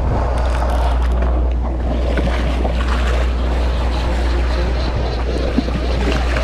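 Steady low drone of a sportfishing boat's engine, with wind and the wash of water against the hull.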